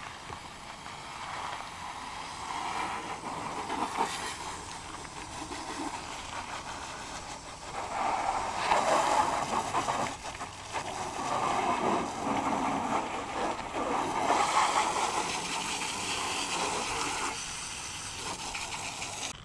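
Garden hose nozzle spraying water onto a muddy ATV, rinsing caked clay mud off its plastics and wheel area. The spray hiss and splatter rise and fall as the stream moves over different surfaces, and it is louder from about eight seconds in.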